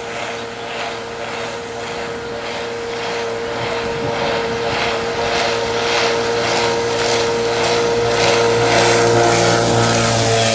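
Small boat engine running steadily. It gives a constant-pitched drone with a rhythmic pulsing of about two to three beats a second and grows gradually louder. The engine was restored without new parts, and the owner says it runs very weakly.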